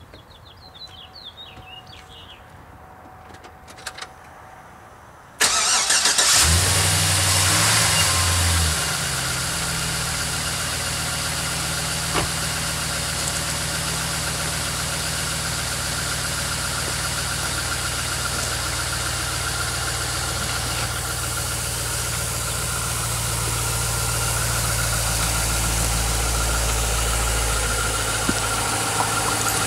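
2005 Chevrolet Silverado's 5.3-litre V8 cold-started: it cranks about five seconds in, catches within a second, runs at a fast idle briefly, then settles to a steady cold idle. The engine is run cold to show piston slap, a light knocking typical of GM 5.3 engines, which began around 60,000 miles.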